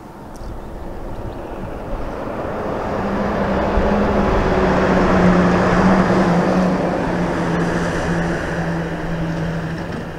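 GB Railfreight Class 66 diesel locomotive passing under power with a train of box wagons. Its two-stroke engine drone and the rumble of the wheels build up, are loudest about halfway through, and then fade, the engine note dropping slightly in pitch as it goes by.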